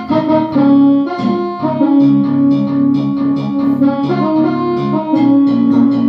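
Roland D-50 synthesizer playing one of its factory preset sounds: a melody of changing notes over held lower notes.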